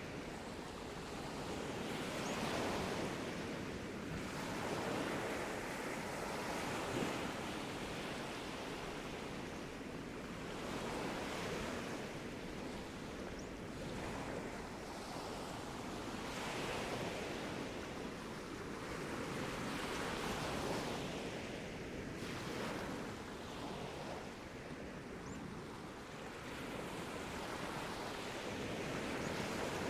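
Sea waves breaking and washing on a beach, swelling and easing in a slow rhythm every few seconds, with some wind on the microphone.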